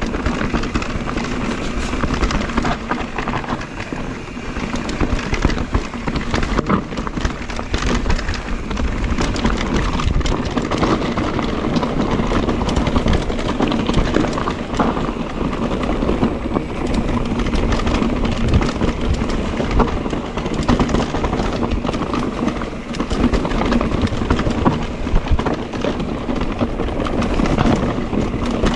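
Electric mountain bike (Mondraker Crafty) ridden over a rough trail: continuous clatter and rattle of tyres, chain and frame over the ground, with a steady low hum running underneath.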